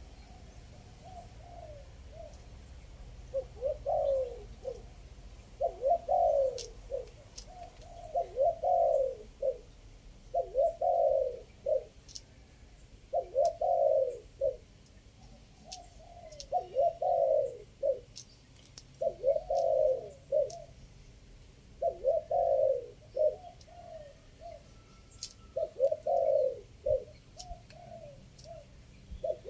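Spotted dove cooing: its 'three-kuk' phrase repeated over and over, one phrase about every two and a half seconds. It is used as a lure call for the species.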